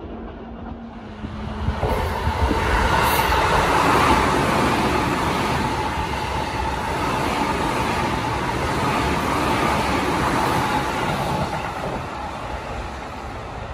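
Tokyo Metro Tozai Line train running past on the adjacent track: wheels on rail with a steady whine. It comes up loud about two seconds in and eases off near the end.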